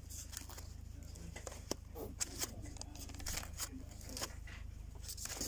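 Paper and card record sleeves rustling and flicking as 7-inch singles are flipped through one by one in a box, in irregular quick strokes, over a steady low hum.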